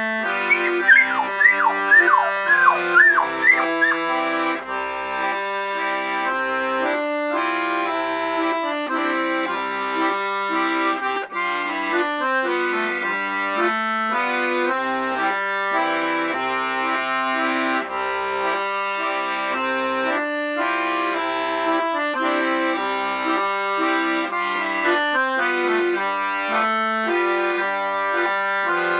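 A piano accordion playing a waltz, with bass notes and chords under the melody. In the first few seconds a golden retriever puppy yips about eight times over the music.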